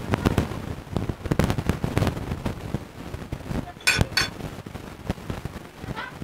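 A table knife cutting through food and tapping and scraping on a ceramic plate: a quick run of small clicks and knocks, with two sharp clinks about four seconds in.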